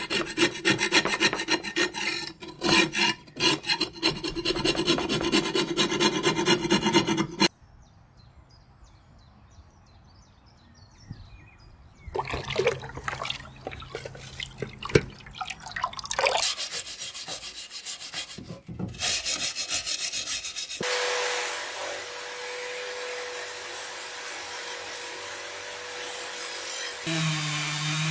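Rapid strokes of a hand wire brush scrubbing rust off a metal stove part for the first several seconds, then a quiet pause. Irregular clatter and splashing as a metal stove part is handled in a tub of liquid follow. In the last third, a small rotary tool runs with a steady whine, its wire-brush bit cleaning rust off the burner plate.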